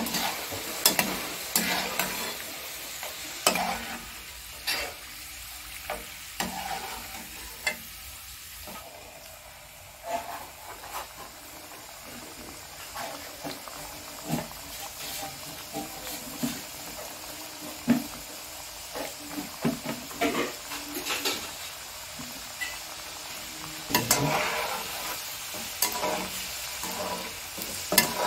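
Mathri dough pieces deep-frying in hot oil in a metal kadhai, a steady sizzle. Frequent sharp clicks and knocks of a utensil stirring against the pan run through it.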